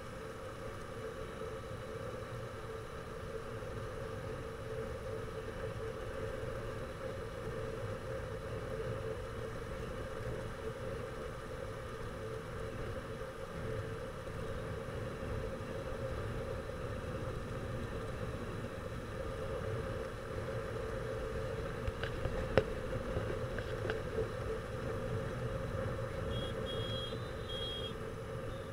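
Motorcycle riding at a steady cruise: engine hum with wind and road noise on the bike-mounted microphone. A sharp tap comes about three quarters of the way through, and a few short high beeps near the end.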